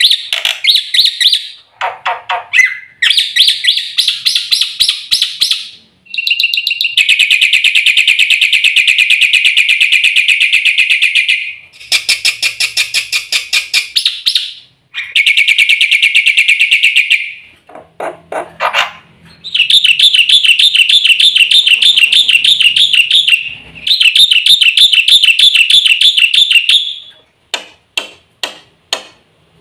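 Black-winged myna (jalak putih) singing: long runs of rapid, rattling repeated notes lasting several seconds each, broken by short pauses and shorter varied chirping phrases.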